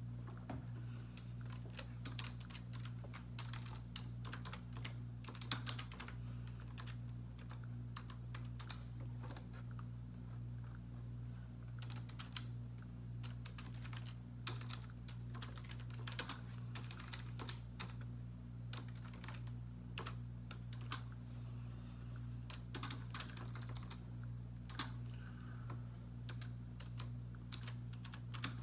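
Typing on a computer keyboard: irregular runs of keystrokes with short pauses between them, over a steady low hum.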